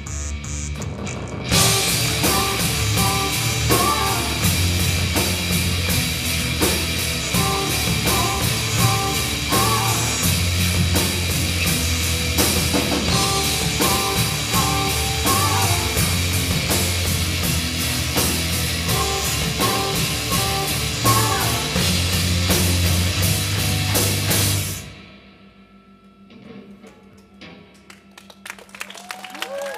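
Live rock band playing loud: electric guitar, bass guitar, drum kit and stage keyboard with synths. The full band comes in about a second and a half in and stops sharply near the end, and the audience starts to clap at the very end.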